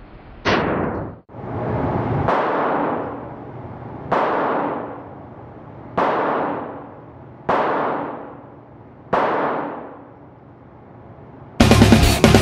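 .22 rimfire shots fired one at a time on an indoor range: six sharp cracks about every one and a half to two seconds, each trailing off in a long echo. Loud rock music cuts in near the end.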